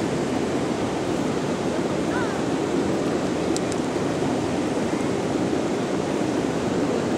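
Steady, even rushing noise that holds the same level throughout.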